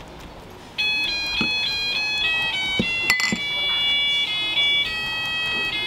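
A short electronic melody of clear beeping tones, starting about a second in and stepping from note to note every third of a second or so, with a few faint clicks underneath.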